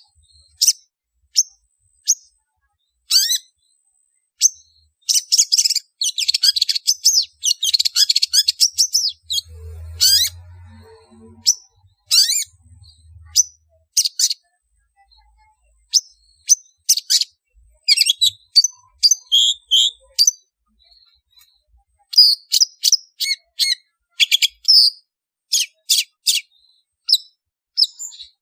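Long-tailed shrike (cendet) calling: short, sharp, high notes in irregular bursts, with a dense run of rapid chattering about five seconds in and another busy stretch near the end. It is a lure call used to draw in wild shrikes.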